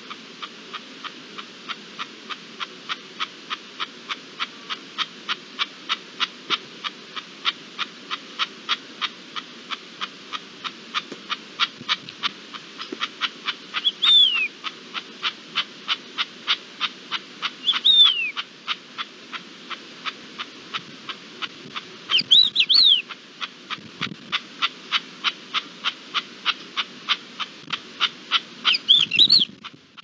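Steady ticking, a little over two ticks a second, over a low background hum. Short, falling wild-bird chirps break in four times and are the loudest sounds, the last two in quick little clusters.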